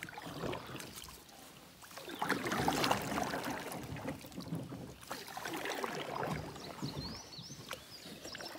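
Kayak paddle strokes: the blades dipping into and pulling through shallow river water, with splashing and dripping that swell and fade every few seconds.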